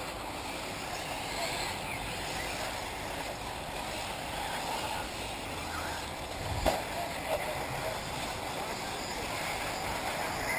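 1/8-scale electric off-road RC buggies running on the track, faint under a steady outdoor hiss of wind. A single sharp knock comes about two-thirds of the way through.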